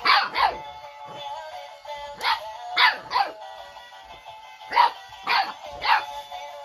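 Seven-week-old boxer puppy barking: about eight short, high barks in quick groups of two and three, over upbeat background music.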